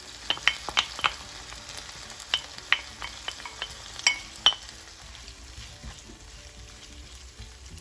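Pan of pepper-and-onion sofrito sizzling gently on a simmer as tuna flakes are stirred in, a spoon clicking against the pan about eleven times over the first four or five seconds, then only the steady sizzle.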